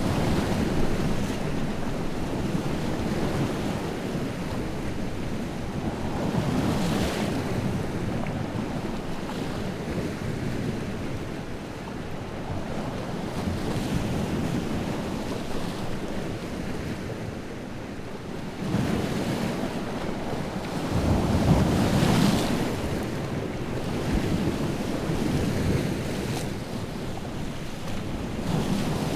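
Lake waves whipped up by strong wind, breaking and washing on the shore in surges every few seconds, with wind blowing throughout; the loudest break comes about three quarters of the way in.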